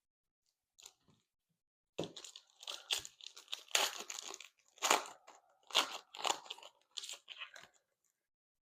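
A trading-card pack wrapper being torn open and crinkled. A run of uneven crackling rustles starts about two seconds in and lasts several seconds.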